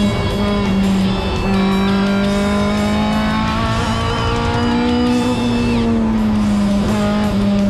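Race-tuned Toyota AE86 Trueno's 4A-GE four-cylinder engine heard from inside the cabin, held at high revs. The pitch climbs back right at the start after a brief dip, then holds steady, rising gently and easing back in the middle. Guitar music plays underneath.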